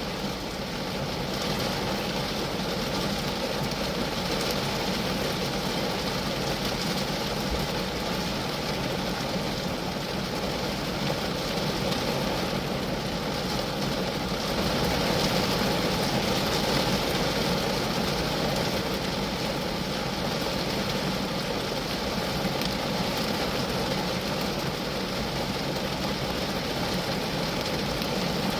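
Steady rain falling on a Geo Metro: a dense, even rush of drops hitting the car's body, with no breaks.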